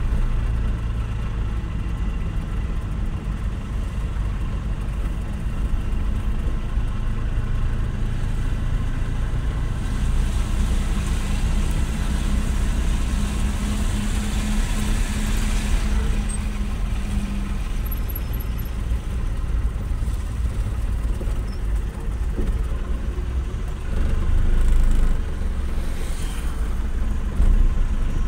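Vehicle engine running and road noise while driving, a steady low rumble with a brief louder stretch about three-quarters of the way through.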